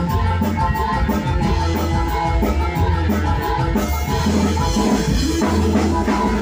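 Music played loud through a large event PA sound system with subwoofers, heavy in deep bass with a steady drum beat; a fast high ticking in the percussion drops out about four seconds in.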